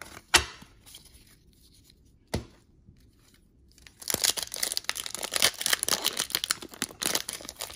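Two light clicks, then from about four seconds in a trading-card pack wrapper is torn open and crinkled, a dense crackling rustle.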